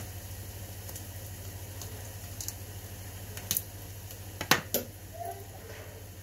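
A kitchen knife cutting food on a plate, with a few sharp clicks and knocks of the blade against the plate, the loudest pair about four and a half seconds in, over a steady low hum.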